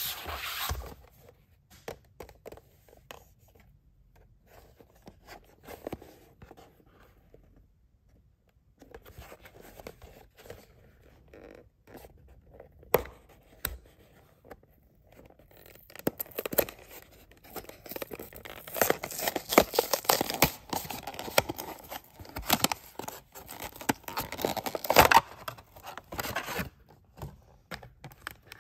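Stiff clear plastic of a toy blister pack being handled and pried open by hand: scattered clicks at first, then a busy run of crinkling, crackling and tearing as the bubble is pulled away from its card in the second half. A single knock comes right at the start.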